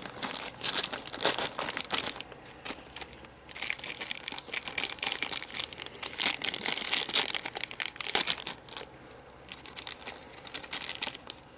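Hard plastic model-kit parts being handled and worked by hand: stretches of dense crinkling rustle and small clicks, pausing briefly a couple of times.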